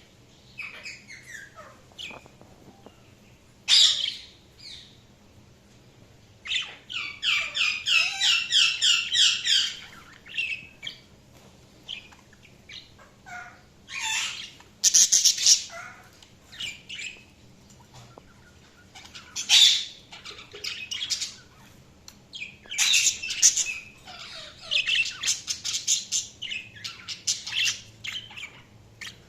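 Budgerigars chirping in short bouts, with quiet gaps between them and one longer run of quick repeated chirps lasting about three seconds.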